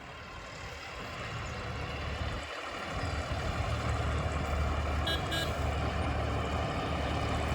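John Deere combine harvester engine running steadily with a low hum, growing louder over the first few seconds.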